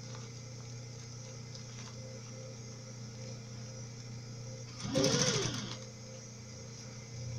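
Domestic sewing machine stitching in one short burst about five seconds in, its motor speeding up and then slowing down as it topstitches bias binding onto a clear vinyl pouch. Before that, only a steady low hum.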